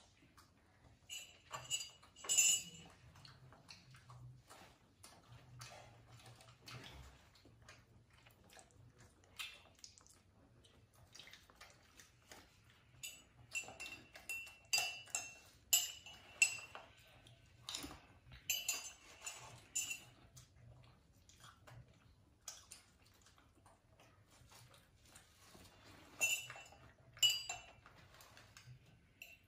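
Light clinks and scrapes of tableware: a metal spoon against a mug and a small stainless steel bowl. They come in scattered clusters, with short ringing clinks about two seconds in, through the middle, and again near the end.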